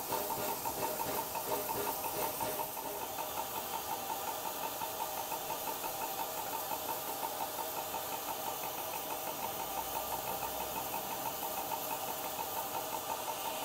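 USATC S160 2-8-0 steam locomotive standing in steam, ready to depart, with a fast, even mechanical pulsing over a steady hiss.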